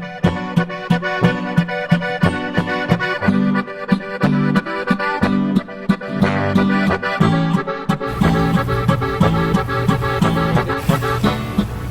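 Instrumental background music with a steady, quick beat; the sound grows fuller and heavier in the bass about eight seconds in.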